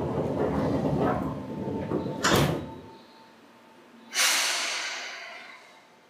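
Seibu 2000 series train's sliding doors closing: a rumbling slide ending in a sharp thump about two seconds in. About four seconds in comes a sudden loud hiss of compressed air that fades away over a couple of seconds.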